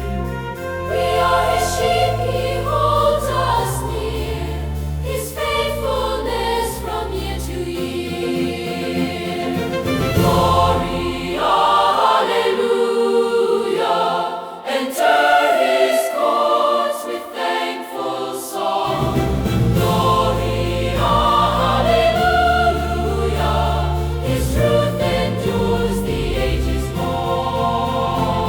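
Choir singing over instrumental accompaniment. The low bass notes drop out for several seconds about halfway through, then return.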